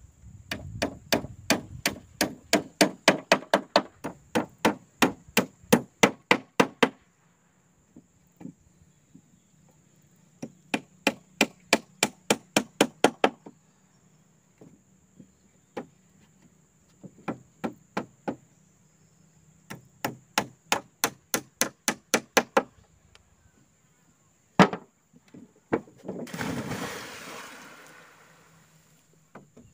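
Runs of rapid blows of a hand tool on wood, about three to four strikes a second, in four bursts with pauses between. Near the end there is one hard knock, then a short rushing noise.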